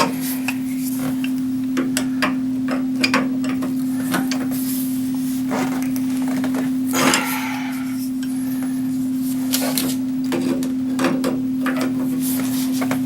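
Pliers clicking and scraping on a new pressure relief valve as it is turned tighter into a water heater: scattered metallic clicks and knocks over a steady hum.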